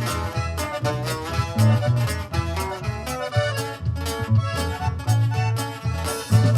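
Band playing an instrumental break in the song, with no singing, over a steady beat and bass line.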